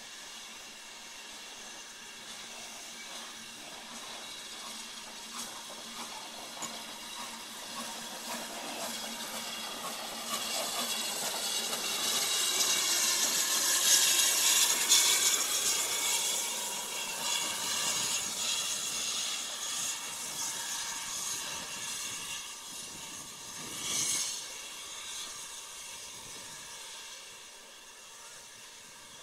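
BR Standard Class 4 steam locomotive 75069 passing close by, with a steady hiss of steam. It grows louder to a peak about halfway through as the engine goes by, then fades as it draws away, with one short louder swell later on.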